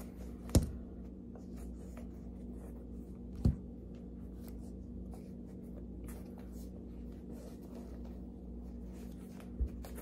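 A basketball sneaker being handled and turned over in the hands: faint rubbing and rustling, broken by two sharp knocks (about half a second in and again a few seconds later) and a dull thump near the end, over a steady low hum.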